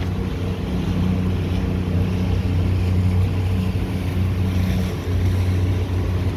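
Outboard motor running steadily as a small boat cruises under way, a constant low hum, with water rushing along the hull and wind on the microphone.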